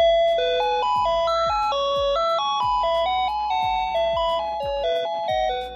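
Electronic chime melody from a battery-powered musical wall clock's hourly-tune sound chip: a simple tune of single beeping notes stepping up and down, a new note about every quarter second. It starts abruptly and stops shortly before the end.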